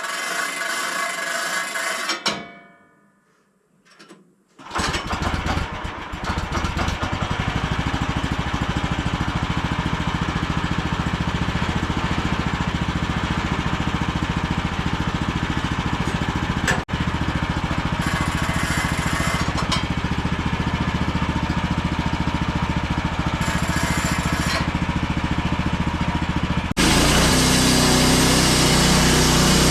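Portable sawmill's gas engine starting about five seconds in, then running steadily. Near the end it gets louder and its sound changes.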